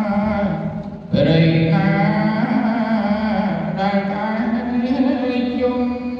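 Cambodian Buddhist monk chanting smot, the melodic Khmer recitation. A solo male voice holds long, slowly wavering notes, with a brief breath about a second in before a new phrase begins.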